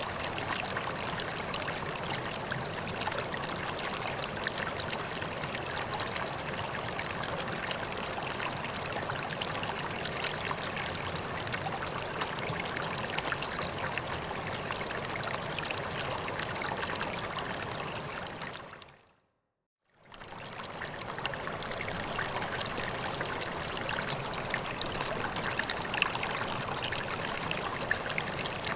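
Water splashing and trickling steadily into a koi pond. About two-thirds through, the sound fades out to silence for about a second and fades back in.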